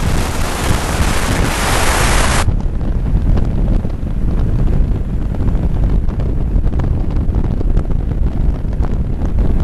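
Wind buffeting the microphone of a camera on a moving motorcycle at road speed: a steady, heavy low rumble. A loud hiss lies over it for the first two and a half seconds and cuts off suddenly.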